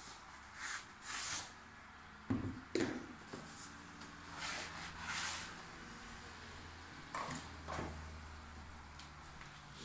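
A long cardboard shipping box being opened at one end and its contents shaken out: cardboard rustling and scraping, with a few sharp knocks as the box and a tube hit the metal tabletop, the two loudest about two and a half seconds in.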